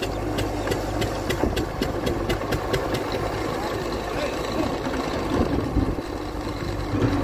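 Diesel engine of a JCB 3DX backhoe loader running steadily while the backhoe arm swings and lowers its bucket into the water, with a quick run of clicks over the first three seconds.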